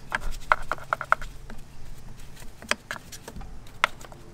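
Sharp metallic clicks of a hand tool working among the engine's coil packs: a quick run of clicks in the first second, then two single clicks a second or so apart.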